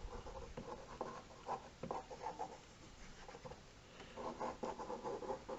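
Pen scratching across paper in quick inking strokes, in two bursts with a short pause between.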